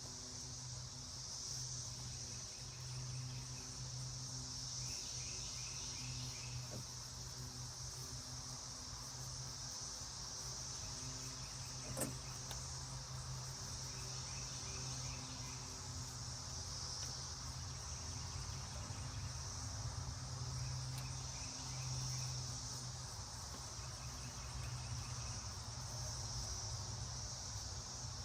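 Outdoor insects, crickets or similar, calling in a steady high drone with short chirping trills every few seconds, over a low steady hum. A single sharp click about twelve seconds in.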